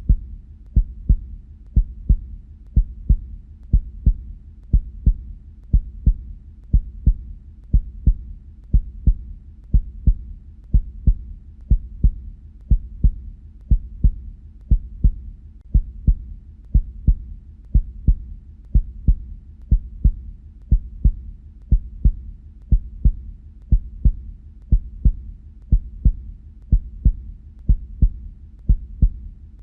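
Human heartbeat in a steady lub-dub rhythm, about one beat a second. Each beat is a pair of low thumps, the first and second heart sounds made as the heart valves close.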